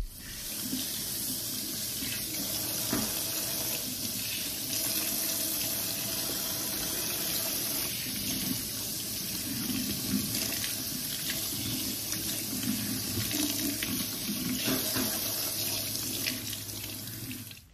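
Water from a pull-down kitchen faucet running steadily into a stainless steel sink, splashing over hands rinsed under the stream.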